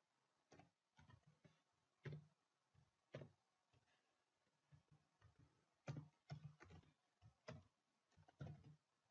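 Faint computer keyboard typing: short, irregular key clicks, some in quick runs, with short pauses between them.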